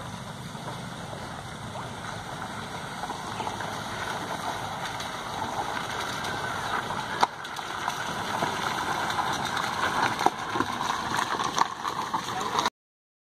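Maruti Suzuki Baleno CVT hatchback driving slowly over a rough, wet gravel road: low engine sound and tyres crunching on stones, growing louder as the car comes closer, with a couple of sharp stone clicks. The sound cuts off suddenly near the end.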